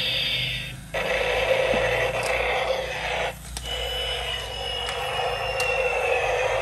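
Battery-operated transforming robot-airplane toy running: tinny electronic sound effects from its small speaker over a gritty whirring from its motor and gears, cutting out briefly twice, with a slowly falling whistle-like tone in the second half.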